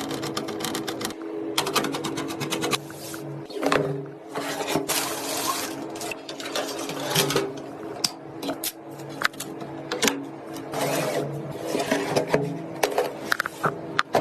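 Rapid clicks, rattles and rustles of computer parts being handled and fitted together, over a steady low hum.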